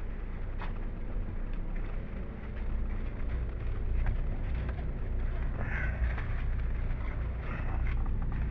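Bus engine's low rumble and road noise heard from inside the passenger cabin, with a short harsh higher-pitched sound about six seconds in.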